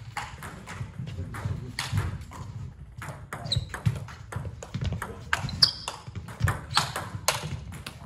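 Celluloid-type table tennis ball clicking in quick succession off rubber-faced bats and the tabletop during a rally, with more clicks from play on other tables in the hall.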